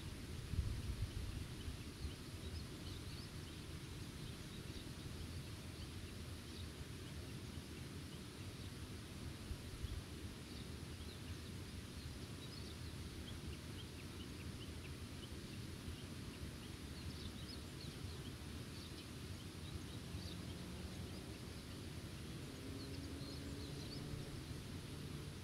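Outdoor meadow ambience: steady low wind noise with a gust near the start, and faint short bird chirps coming in scattered bunches.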